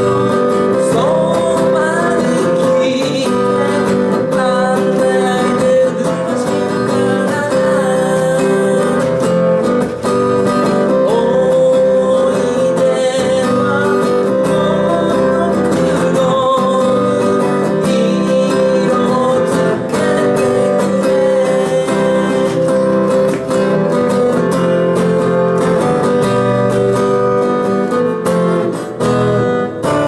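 Acoustic guitar strummed steadily, with a man singing along to it.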